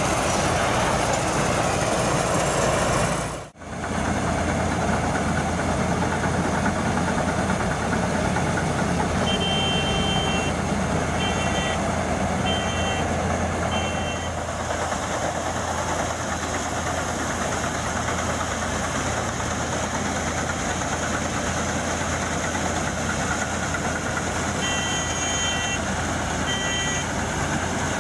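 Engine of a Ranger rice combine harvester running steadily, with an abrupt break about three and a half seconds in. Two runs of short electronic warning beeps sound over it, one near the middle and one near the end.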